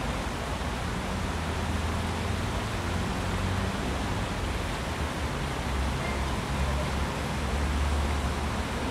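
Small stream rushing over rocks and a low cascade, a steady hiss of flowing water with a low rumble underneath.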